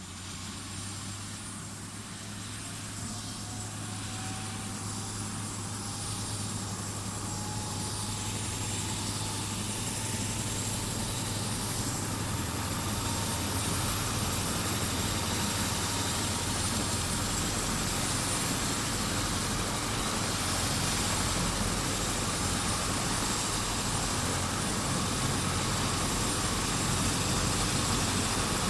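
Helicopter turbine and rotor running up, with a whine that rises in pitch over the first ten seconds or so, and the whole sound growing steadily louder.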